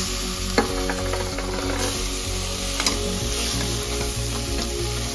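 Food sizzling in hot oil in a pan while being stirred, with two sharp clicks, about half a second in and near three seconds in. Background music plays with steady held notes underneath.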